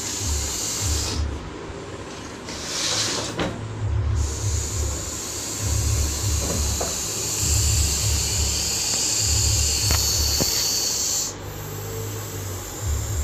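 Russell's viper hissing: a short hiss about three seconds in, then a long, loud hiss held for about seven seconds that stops suddenly. Low rumbling pulses run underneath.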